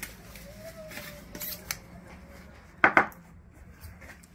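A knife cutting meat on a wooden cutting board: a few light taps, then two sharp knocks in quick succession about three seconds in.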